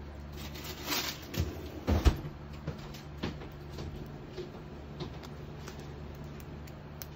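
A damp flannel drip coffee filter being worked onto its wire frame by hand: soft cloth handling with small clicks of the metal frame, the loudest knocks coming about two seconds in, then a few lighter clicks. A steady low hum runs underneath.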